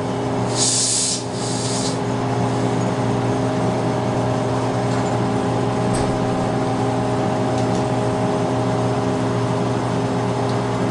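Steady hum of laboratory equipment, with several steady tones in it. Two short hisses come about half a second and a second and a half in, and a few faint clicks follow later.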